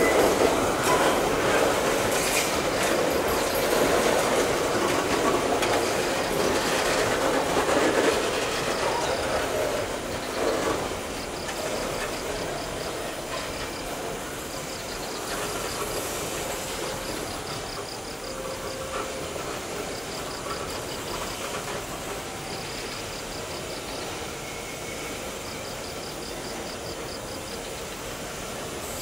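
Loaded coal hopper wagons of a long freight train rolling past at close range, their wheels clicking over the rail joints. The sound is loudest in the first ten seconds and then fades as the last wagons go by.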